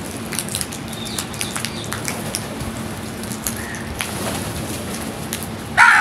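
House crows pecking grain off a concrete floor: a rapid, irregular patter of beak taps with a few short soft calls, and one loud caw near the end.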